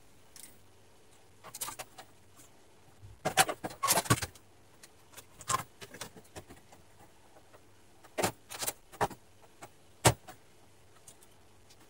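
Knocks, clicks and rattles from the television's main circuit board and its plastic chassis frame being handled and moved. There is a dense cluster about three to four seconds in, another group around eight to nine seconds, and the sharpest single knock just after ten seconds.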